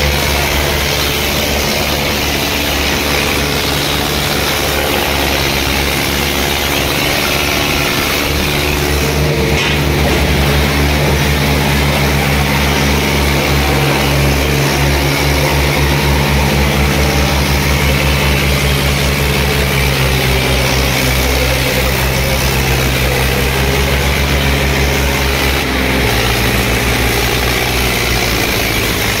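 Diesel engines of an Eicher 557 and a Swaraj 855 tractor running hard under load as the coupled tractors pull against each other in a tug-of-war. The steady engine note gets a little louder about ten seconds in and drops in pitch near the end.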